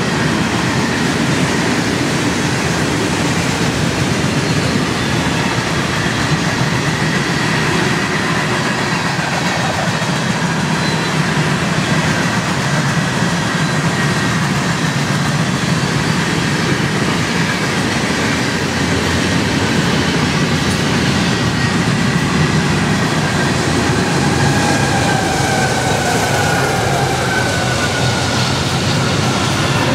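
Union Pacific freight trains rolling past: a steady rumble and clatter of steel wheels on rail. A faint whine falls in pitch near the end.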